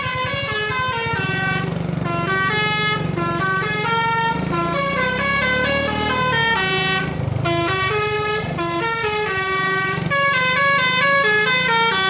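Basuri V3 telolet horn on a bus playing a quick melody of stepped air-horn notes in repeating phrases with short breaks, over the steady hum of the bus engine.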